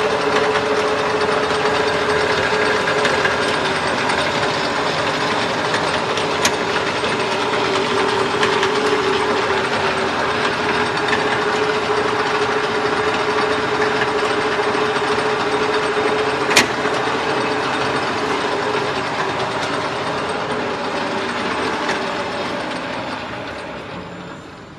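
Ramo mini lathe running, its gears and drive making a steady mechanical whir with a humming tone, with two sharp clicks along the way. It runs down and fades near the end.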